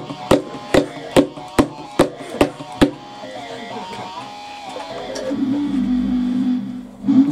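Instrumental music on a Korg synthesizer. For the first three seconds, seven sharp clicks fall in an even beat over held notes. About five seconds in, a low held note with a wavering edge takes over.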